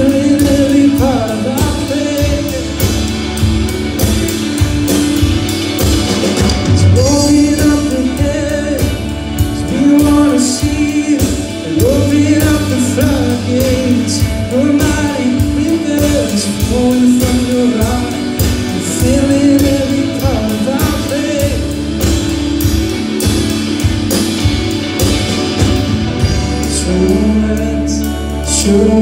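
Live rock trio playing an instrumental passage: electric bass and drum kit keep a steady beat while an electric guitar plays a gliding melodic lead line.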